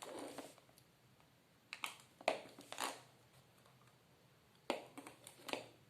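Hands taking apart a plastic hair dryer housing: scattered short clicks, knocks and rustles of the plastic parts being handled and pried.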